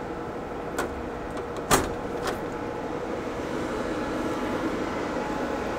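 Quantum Scalar i6000 tape library cabinet door being unlatched and swung open: a light click, then a sharp latch clunk about two seconds in and a smaller knock just after. A steady hum with a faint tone runs under it.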